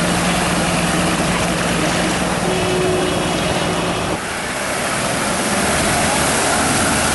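An engine running steadily under a loud, even rushing noise; the engine hum drops away about four seconds in.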